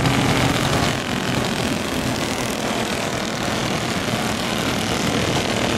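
Engines of a pack of racing go-karts running together at speed, a steady buzzing drone, a little louder in the first second.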